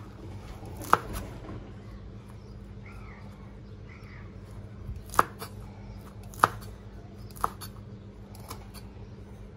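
A steel cleaver chopping long beans on a bamboo cutting board: a few separate sharp knocks of the blade hitting the board, one about a second in and three more between about five and seven and a half seconds in, over a low steady hum.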